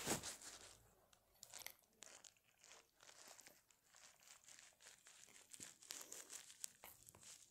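Near silence broken by faint, scattered rustles and clicks of handling, with a slightly louder rustle right at the start.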